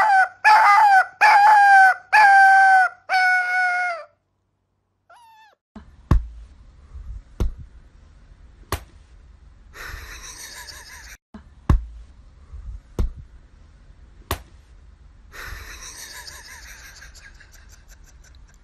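Husky puppy howling in a string of about five short calls at a steady pitch, stopping about four seconds in. A few scattered soft thumps follow.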